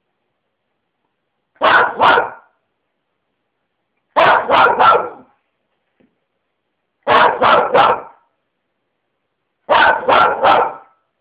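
Small dog barking in quick runs of two or three barks, four runs about every two and a half to three seconds, with silence between them.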